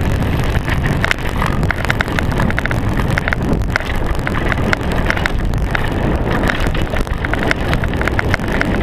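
Full-suspension mountain bike rolling down a rough dirt trail: a steady low rumble of tyres and wind on the GoPro's microphone, with quick irregular rattling clicks from the bike.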